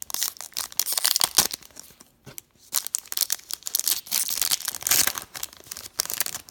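Wrapper of a hockey card pack being torn open and crinkled by hand: two spells of tearing and crinkling with a short pause about two seconds in.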